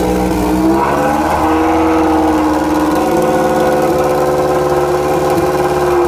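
A Factory Five 818S's turbocharged Subaru flat-four engine running on its first start, idling with a slight rise in revs about a second in, then holding steady.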